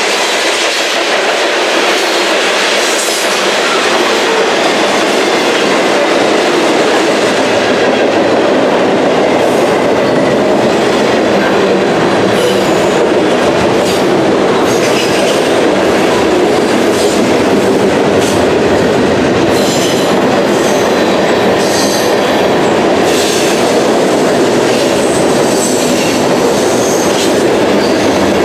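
Freight cars of a long, fast freight train rolling past close by: a loud, steady rumble of steel wheels on the rails, with repeated clicks from the wheels over the track that grow more frequent in the second half.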